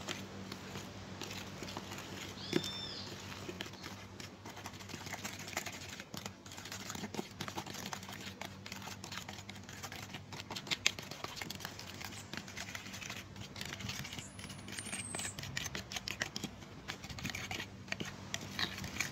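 Metal teaspoon stirring wet lime paint with red ferrite pigment in a thin aluminium foil dish, with irregular light scraping and clicking of the spoon against the dish.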